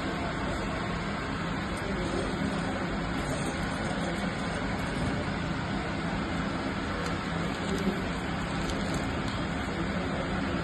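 Steady hum and noise of running workshop machinery, with one short knock about eight seconds in.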